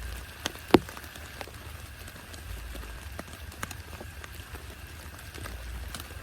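Rain dripping and tapping on a surface in irregular drops, with one sharp, louder tap a little under a second in, over a low steady rumble.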